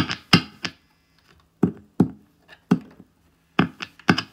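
A screwdriver tapping the Stratocaster's pickups, heard through the guitar amp as about a dozen sharp knocks at an irregular pace, over a faint steady amp hum. This is the screwdriver test, done to check that the freshly wired pickups work before reassembly.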